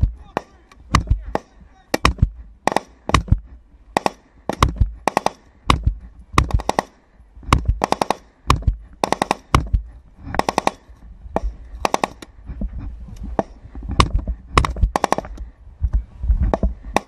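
Close military rifle fire: single shots and short rapid bursts of two to five rounds, going on throughout with only brief pauses, each shot echoing off the hillside.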